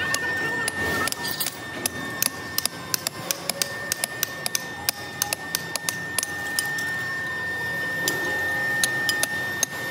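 Factory noise: irregular sharp metallic clicks and clinks, about two or three a second, over a steady high-pitched whine.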